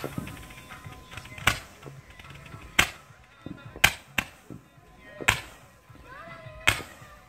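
Consumer firework cake firing shot after shot: six sharp bangs, about a second or so apart, as it sends up its stars.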